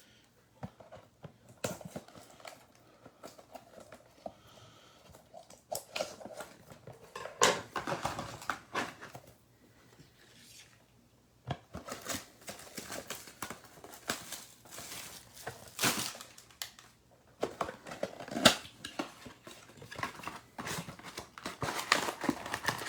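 Plastic shrink wrap crinkling and tearing and cardboard rustling as a sealed hobby box of baseball card packs is cut open and the packs are taken out, in irregular bursts with a brief quiet spell about ten seconds in.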